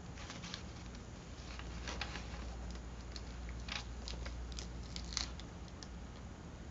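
Faint rustling and crinkling of paper cutouts being handled and pressed onto a collage page, with a few soft ticks, the sharpest about five seconds in, over a low steady room hum.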